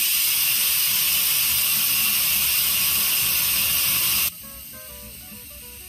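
Steam hissing hard out of an Instant Pot's pressure release valve opened to venting: a quick release of the built-up cooking pressure. The hiss cuts off abruptly about four seconds in, and a light background melody of short notes follows.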